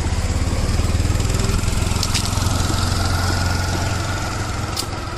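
A small vehicle engine idling close by, a rapid even chugging that eases off slightly toward the end.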